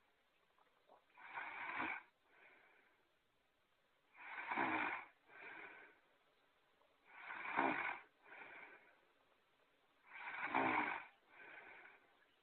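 Cartoon-character snoring sound effect: slow, even snores about three seconds apart. Each is a loud snore followed by a shorter, softer breath.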